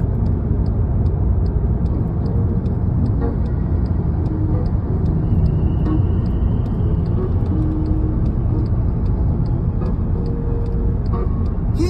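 Steady low rumble of a car cruising on a dual carriageway, engine and road noise heard inside the cabin.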